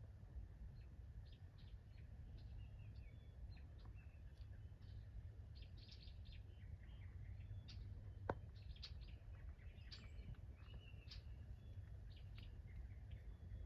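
Several songbirds chirping and calling in short notes and trills, faint, over a steady low rumble of wind, with a single sharp click about eight seconds in.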